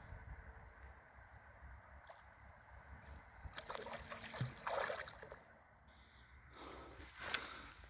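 A hooked sturgeon splashing and thrashing at the water's surface as it is played in, in a burst of splashes from about halfway through, followed near the end by a brief knock.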